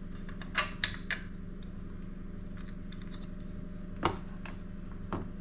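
A few sharp clicks and taps from taking the light cover off a floor edger, one cluster about half a second to a second in and another around four to five seconds in, over a steady low hum.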